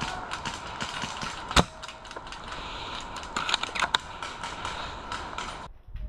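Sharp clicks and snaps of airsoft guns firing, with one loud crack about a second and a half in and a quick cluster of shots a little past the middle. The sound drops away abruptly near the end.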